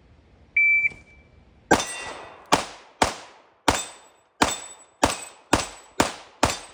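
A shot timer's start beep, then nine quick 9mm shots from a Taurus G3 Toro Tactical pistol fitted with a Zev compensator, roughly two shots a second. Each shot is followed by the ring of a steel dueling-tree plate being hit.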